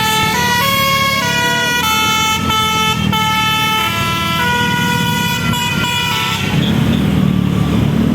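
Telolet bus horn playing a melody: a run of loud held multi-tone horn notes that step from pitch to pitch, stopping about six seconds in. The bus engine running then carries on.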